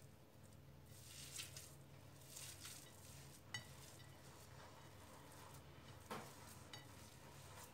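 Hands kneading raw minced meat with spices: faint, soft squishing of the mince, with two small clicks, about three and a half and seven seconds in.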